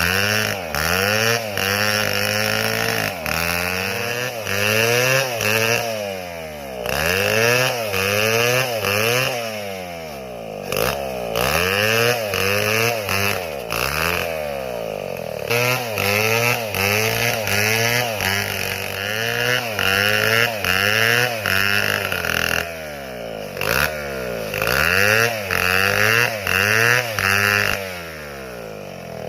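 Large two-stroke chainsaw working through a tree, its engine pitch repeatedly sagging and climbing back, about once a second, with a few brief lulls.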